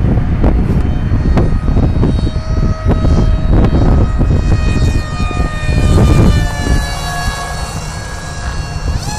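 Electric motor and propeller of an RC flying wing running on 700 watts from a 4S LiPo, heard as a steady high whine with several tones that shift in pitch as the plane moves. Heavy wind buffets the microphone and eases about six seconds in, leaving the whine clearer.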